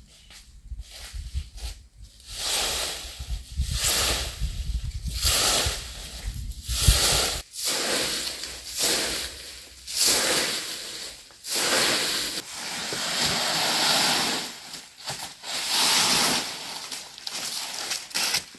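Straw broom sweeping dry fallen leaves: repeated rustling swishes, about one a second, some strokes longer than others, with a low rumble under the first half.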